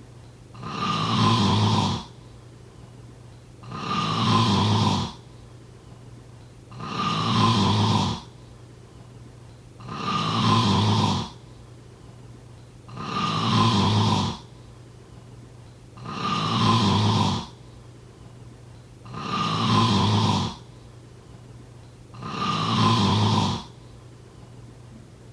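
Snoring in a steady rhythm: eight long snores, each about a second and a half, coming roughly every three seconds with quiet breaths between.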